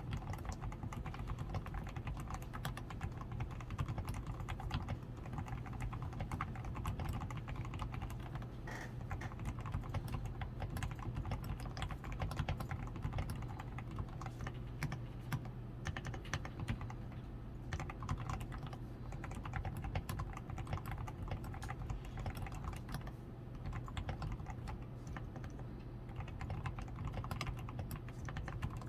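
Continuous typing on a DAREU A87 Pro mechanical keyboard: a dense, unbroken stream of key presses. The board is fully lubed with Krytox 105, with a PCB tape mod, foam-reinforced switches, lubed stabilizers and XDA keycaps. A steady low hum runs underneath.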